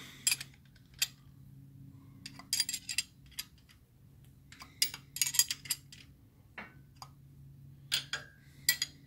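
Metal spanner clicking and clinking against the distributor hold-down clamp bolt on a big-block Chevy as it is tightened, in short clusters of sharp ticks: the distributor being locked in place after the ignition timing is set.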